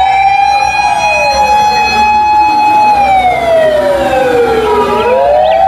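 Japanese fire ladder truck's siren wailing: a long held high tone that slides down in pitch about three seconds in and climbs back up near the end, with a second siren tone overlapping it.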